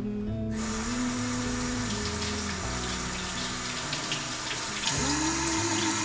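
Kitchen faucet running, water splashing over produce held in a bamboo basket in a stainless steel sink. It starts about half a second in and gets a little louder near the end.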